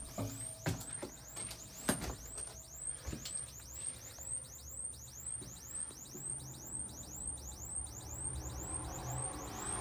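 Handling knocks and bumps inside a truck cab, sharpest in the first two seconds, over a low steady hum, with a faint high chirp repeating about two and a half times a second.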